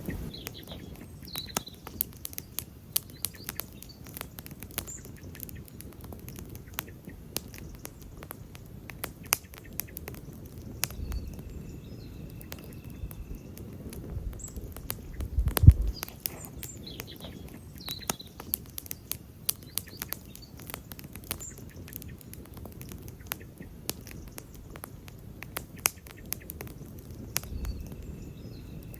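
Wood campfire crackling: frequent sharp pops and snaps over a low rumble of the flames, with one louder, deeper pop about halfway through.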